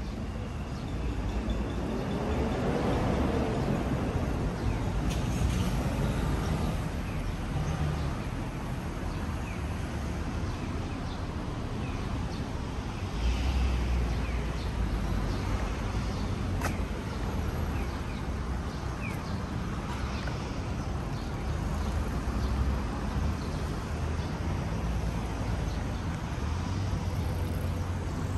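Town street ambience: a steady wash of passing traffic with low rumbles swelling and fading as vehicles go by, and short bird chirps now and then.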